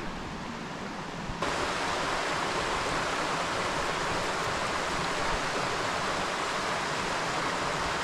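Mountain river rushing, a steady wash of water noise that jumps louder about a second and a half in.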